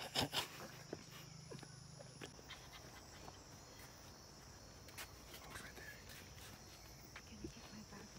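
Faint, steady high-pitched insect chorus of a tropical forest, with a few loud knocks and rustles of the phone being handled in the first half-second and scattered clicks and footsteps after.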